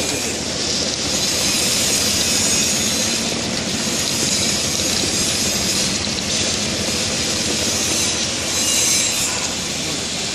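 Peanut chopping machine running: a steady, loud mechanical noise with a strong hiss on top as its roller cutters dice peanut kernels and the chopped pieces pour out of the discharge.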